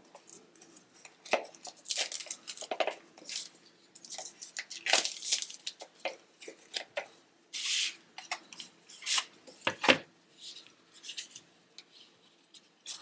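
Ulanzi Claw quick-release kit being unpacked by hand: packaging rustling and tearing in irregular bursts, with light clinks of its metal parts.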